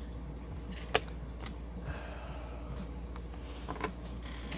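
Trading cards and their packaging being handled: a few soft clicks and rustles, with one sharp click about a second in, over a steady low hum.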